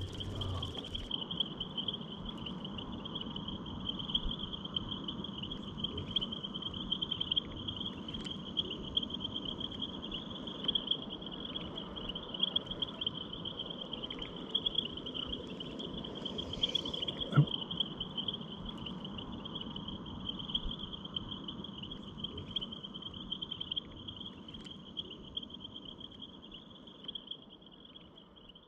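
A steady, high-pitched trilling chorus of insects, most likely crickets, with a few faint clicks and one sharp knock a little past halfway. The sound fades out near the end.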